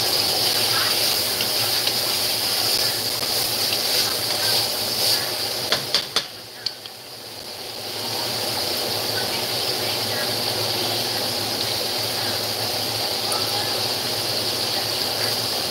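Chicken pieces sizzling steadily as they fry in a pan. A few sharp clicks of a utensil come about six seconds in, and the sizzle dips for a moment before carrying on.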